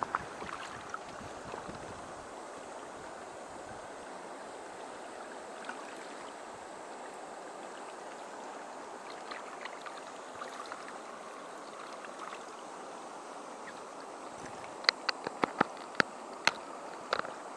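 Shallow, stony river running: a steady rush of water. Near the end comes a quick run of sharp knocks, louder than the water.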